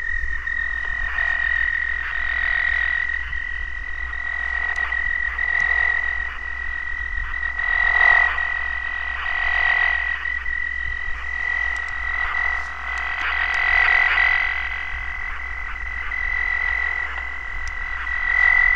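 A continuous high, rapidly pulsing warble held on one pitch over a low hum, swelling and easing back every couple of seconds.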